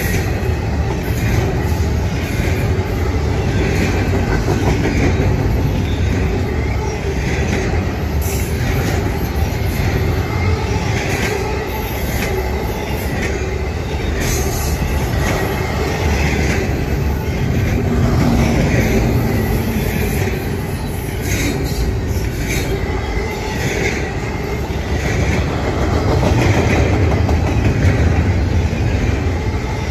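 Intermodal freight train's double-stack well cars and trailer flatcars rolling past at speed close by: the steady, loud noise of steel wheels running on the rails.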